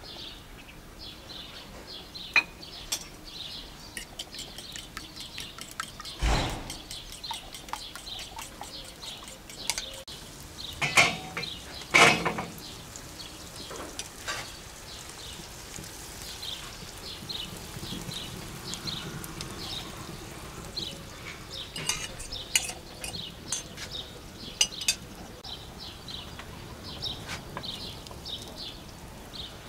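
Dishes and utensils clinking and knocking now and then, with a few louder knocks near the middle. Birds chirp in short high notes throughout.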